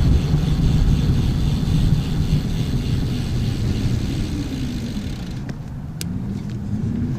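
Road traffic passing a moving bicycle: a motor vehicle's engine whose pitch slides down and back up, over a steady low rumble. A single sharp click comes about six seconds in.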